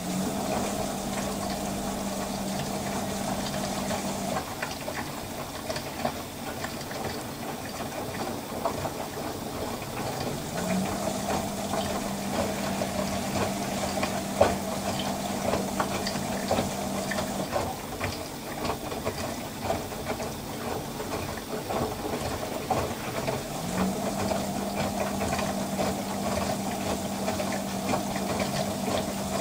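LG VC2 front-loading washer-dryer in its final rinse: the drum tumbles a soaked double duvet, with water sloshing and splashing. Under it, a steady hum from the spray-jet pump switches on and off: it runs at the start, stops about four seconds in, comes back for several seconds in the middle, and returns near the end.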